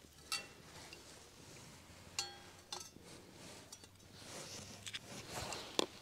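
Metal cookware and utensils clinking: several sharp knocks, one ringing briefly a little over two seconds in and the loudest near the end, with soft scraping and rustling in between.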